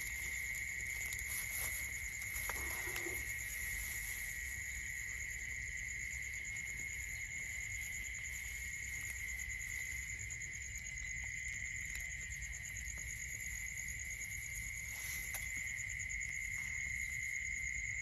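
Steady chorus of crickets and other insects: continuous high trilling at several pitches, with a few faint rustles in straw.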